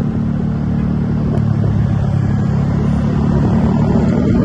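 A road vehicle's engine running with a steady low rumble, growing a little louder toward the end.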